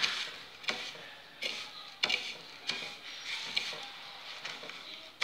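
Fingers pressing battered onion rings into dry breadcrumbs on a ceramic plate: a gritty rustle of crumbs with about six light clicks and taps scattered through it.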